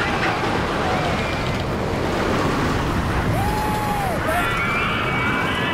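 Wind rushing over the microphone on the Kingda Ka roller coaster, with riders yelling over it: one long held yell about three and a half seconds in, then several voices yelling together near the end.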